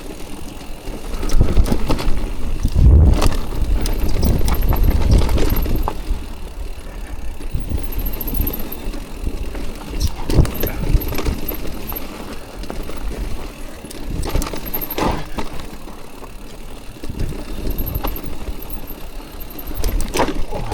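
Mountain bike riding down a rough trail: a continuous low rumble from the tyres and ride, loudest a few seconds in, broken by many sharp clatters and knocks as the bike rattles over rough ground.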